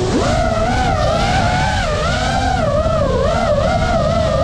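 FPV quadcopter's brushless motors whining, the pitch wavering up and down constantly with the throttle, over a low rush of wind and prop wash.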